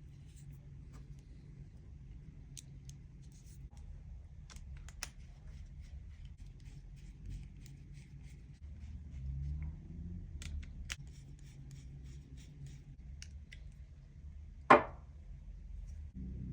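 Small clicks, scrapes and rubbing as a knife and its case are handled and packed, with a run of quick ticks around ten to thirteen seconds in. One loud knock about fifteen seconds in.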